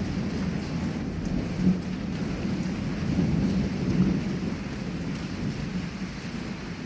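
Heavy rain falling steadily while thunder rumbles low. There is a louder peak in the rumble just under two seconds in and another swell about four seconds in, and the thunder eases off toward the end.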